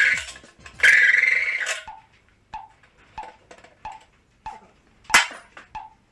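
Clear plastic sheeting rustling and crinkling in two bursts of about a second each as it is handled. After that come soft, evenly spaced clicks about every half second or so, and one sharp click about five seconds in.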